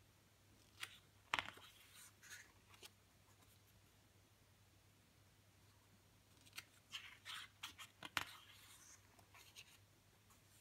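Pages of a CD album's photo booklet being turned by hand: two page turns, each a short run of paper flicks and rustles, the first about a second in and the second past the middle.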